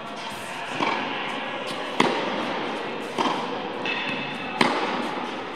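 Tennis ball being struck back and forth in a rally: four sharp pops of racket on ball, about one every second and a quarter, echoing in an indoor court hall.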